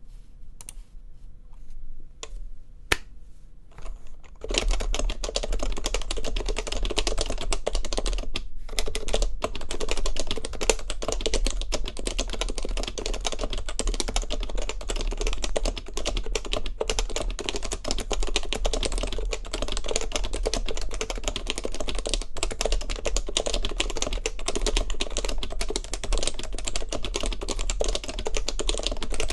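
Fast typing on a custom keyboard with stock HHKB Professional Classic Topre switches under stock keycaps on an ABS plate. A few single keystrokes come in the first few seconds, then a dense, continuous stream of fast typing with a brief pause near the 8-second mark.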